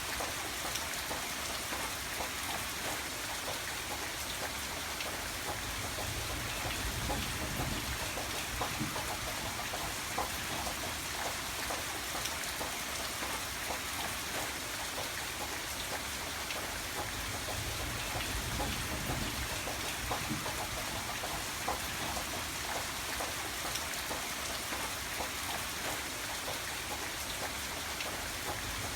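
Steady rain falling, with dense patter of drops on a surface and a few soft low rumbles that swell and fade.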